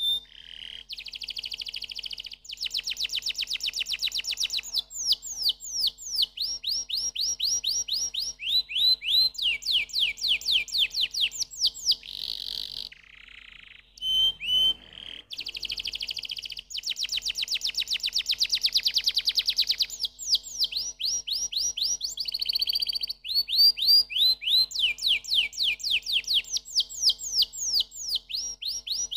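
Domestic canary singing: a long run of fast trills, each made of quickly repeated high notes, some sweeping up and some sweeping down in pitch. There is a short break a little after the middle.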